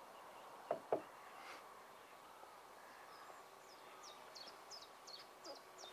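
A small songbird singing a string of short, high, repeated notes, with two brief louder sounds close together about a second in.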